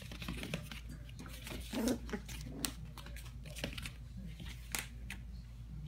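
Four-week-old puppies scrambling about a playpen: scattered light taps, scuffs and scratches of small paws and claws on foam floor mats and plastic panels.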